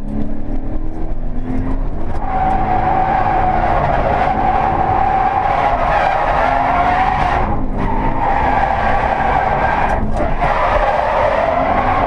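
Toyota 86's stock 2.0-litre flat-four engine running hard, heard from inside the cabin, while the tyres squeal through a drift. The squeal sets in about two seconds in and breaks off briefly twice before picking up again.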